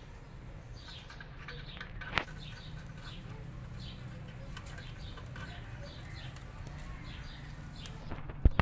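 Small birds chirping in the background, many short high chirps over a steady low hum. A single sharp click about two seconds in, and two or three loud sharp knocks near the end.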